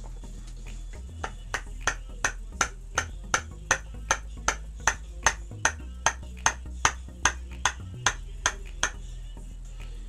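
A steady run of about twenty sharp taps, close to three a second, as a hand strikes a steering intermediate shaft to drive its two splined halves together. The taps start about a second in and stop near the end, over low background music.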